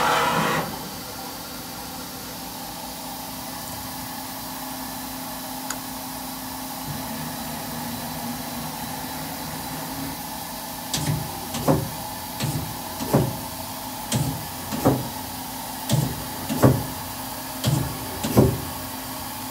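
Steady hum of a powered Miyano BND-34S3L CNC turning centre. About eleven seconds in, its 8-station turret starts indexing station by station, each step a short whir and clunk. The steps come in pairs, about five pairs in all.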